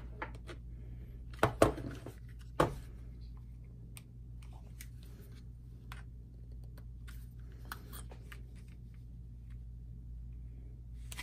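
Clicks and light knocks of a Glock 19 pistol frame and its trigger parts being handled and fitted back together, with two louder knocks in the first three seconds and scattered faint ticks after. A steady low hum runs underneath.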